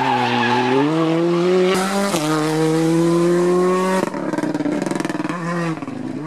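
Hyundai R5 rally car's turbocharged four-cylinder accelerating hard out of a hairpin, its note climbing, with a quick upshift about two seconds in. About four seconds in the sound switches to another rally car's engine, rougher and fast-rattling.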